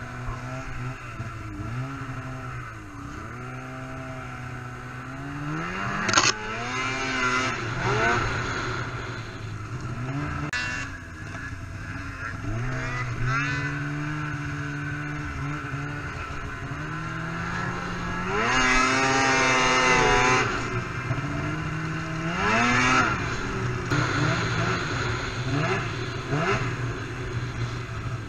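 Two-stroke snowmobile engine being ridden hard, its revs rising and falling again and again as the throttle is worked. A sharp knock comes about six seconds in, and the highest, loudest revs come about two-thirds of the way through.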